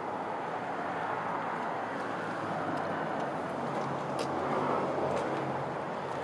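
Steady outdoor background noise, like distant traffic, with a faint low hum and a couple of faint clicks.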